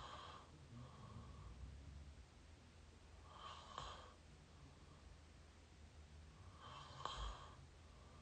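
A person mouth snoring close to the microphone: faint, breathy snores through an open mouth, one about every three and a half seconds.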